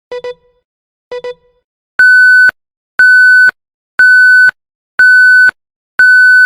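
Countdown timer sound effect: two quick ticks a second apart, each a double click, then five loud high beeps, one a second, each about half a second long. This is the warning of the timer's final seconds.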